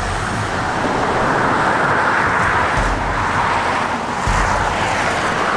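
Steady rush of road and wind noise from a car driving at speed, with low rumbles now and then.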